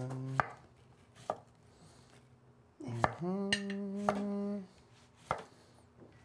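Knife slicing cucumber into thin rounds on a wooden cutting board: a few separate sharp knocks of the blade on the board, a second or more apart. A person's wordless voice holds a drawn-out note for about a second and a half in the middle.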